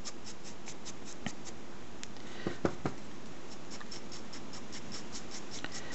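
Stiff paintbrush bristles scrubbed in quick short strokes against a plastic palette, working off excess paint for dry brushing. There are a few light knocks about two and a half seconds in.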